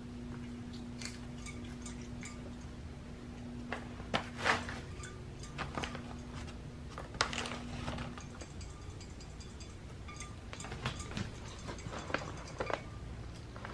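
Battery-powered robotic toy fish running in a glass bowl of water, its tail motor giving a steady low hum that stops about eight seconds in. Scattered light clicks and small water splashes sound over it, loudest around four and seven seconds in.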